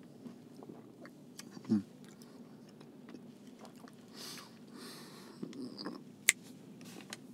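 A man's quiet mouth sounds while savouring a milkshake with cookie crumbles: lip smacks and small chewing clicks, a short low hum about two seconds in, a breath, and one sharp click near the end.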